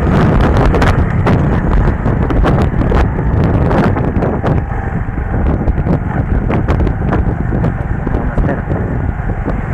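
Wind buffeting the microphone of a moving motorcycle, a loud rumbling, crackling rush with road and engine noise underneath.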